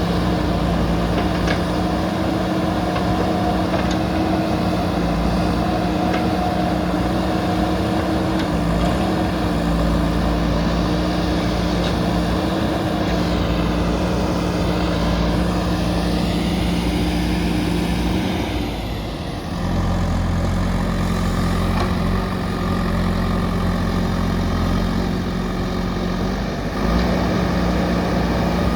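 JCB backhoe loader's diesel engine running steadily. Its note dips briefly about two-thirds of the way in and settles to a deeper tone, then rises again near the end.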